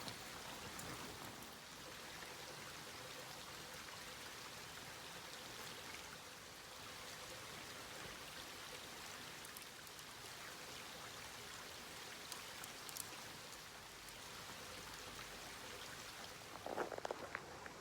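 Faint, steady rush of water, with a short cluster of knocks near the end.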